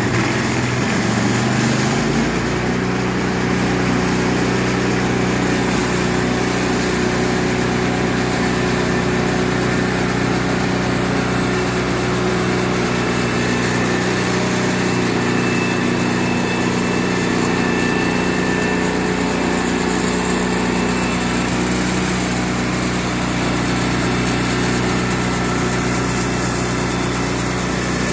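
Sawmill's small engine running steadily, its pitch rising and settling about two seconds in, then holding an even note.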